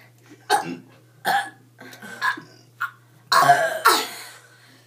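Girls burping: a few short burps, then a louder, longer one a little past three seconds in.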